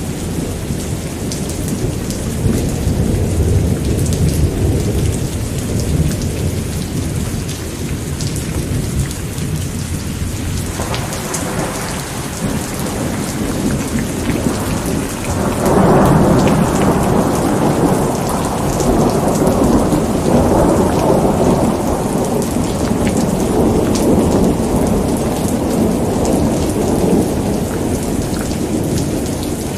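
Rainstorm: steady rain with rolling thunder. A low rumble runs through the first part, and about halfway through a louder peal of thunder swells and rolls on for more than ten seconds before easing.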